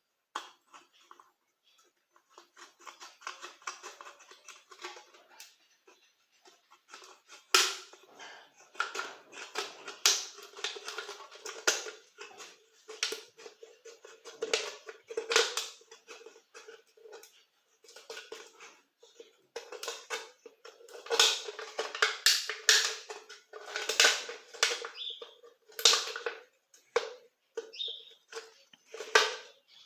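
Thin aluminium beer can being cut open by hand, an uneven run of crinkling scrapes and sharp metallic clicks, sparse at first and busier from about seven seconds in, many of them with a short metallic ring.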